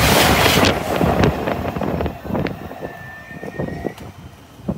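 LNER Azuma high-speed train passing through at speed: a loud rush of air and wheel noise that drops away about a second in, followed by a fading run of clicks and knocks from the wheels on the rails as the train goes off.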